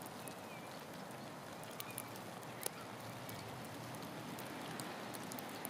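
Faint outdoor ambience during snowfall: a steady, even hiss with scattered light ticks of falling snow, and one sharper click a bit under three seconds in.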